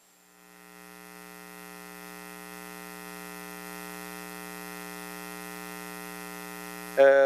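Steady electrical mains hum: an even, unchanging buzz that fades in over the first couple of seconds and holds level, then cuts off suddenly near the end as a man's voice comes in.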